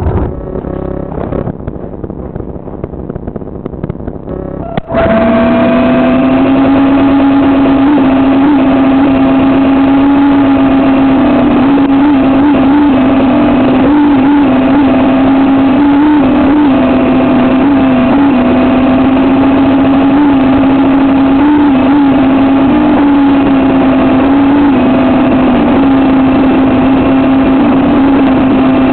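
Electric motors and rotors of a 200 g coaxial RC helicopter, heard from a recorder mounted right underneath it. About five seconds in they start abruptly and rise to a loud, steady hum, which then holds with a slightly wavering pitch. Before that there is only quieter handling noise with a few clicks.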